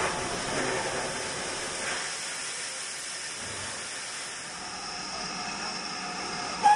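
Steady hiss of steam from GWR 28xx class 2-8-0 heavy freight locomotive 2807 standing at the platform. A brief, much louder tone sounds right at the end.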